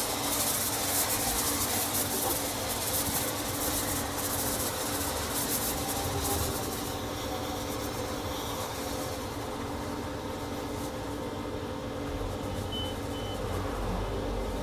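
Pressure-washer lance spraying onto a truck: a loud hiss that fades out about halfway through, over a steady machine hum.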